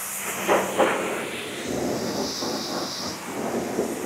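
Self-serve car wash high-pressure wand spraying water onto a car: a steady hiss of spray.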